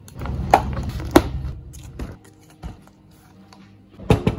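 Counter-handling noises: a low rustling rumble with two sharp knocks in the first two seconds, then a clatter of plastic knocks near the end as a clear plastic blender jug is picked up.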